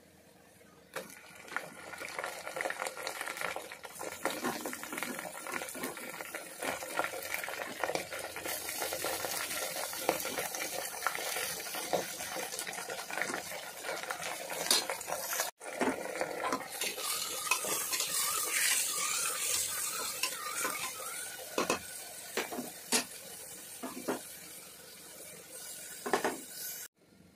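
Sliced onions, then minced meat, frying in hot oil in an aluminium pressure cooker: steady sizzling with frequent clinks and scrapes of stirring against the pot. The sizzle is stronger in the second half, once the meat is in.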